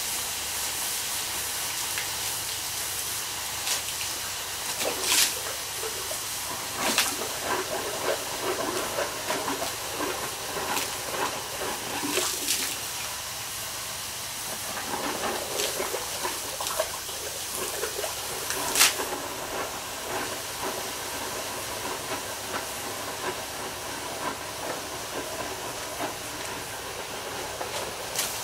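Water poured onto a hot steel cannon tube hisses into steam and boils violently on the metal, with sputtering and several sharp cracks and pops. This is the quench that shrinks the heated outer tube onto the inner tube.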